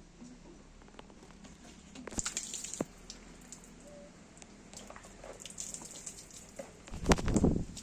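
Horse moving in a stable: faint scattered knocks and rustling, a short hiss about two seconds in, and a loud low burst near the end.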